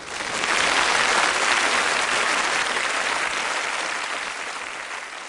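Audience applause, breaking out suddenly, strongest in the first couple of seconds, then slowly fading.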